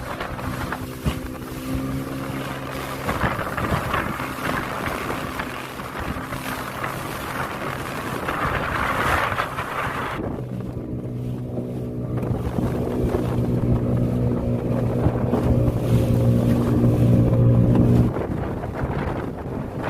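A small boat's motor running under way, its note growing louder in the second half and then easing off suddenly near the end, with wind on the microphone.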